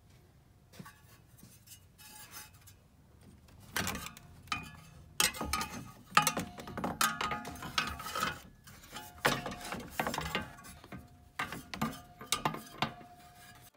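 Jeep Wrangler TJ's plastic fan shroud being worked into place against the radiator: irregular knocks, scrapes and clatter of hard plastic, sparse at first and busy from about four seconds in.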